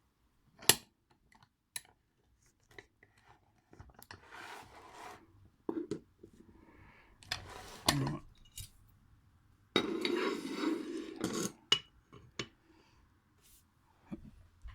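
Small metal parts of an ASSA 600 lock and lock tools being handled: a sharp click about a second in, then scattered taps, clatter and scraping, with a longer scrape near the end.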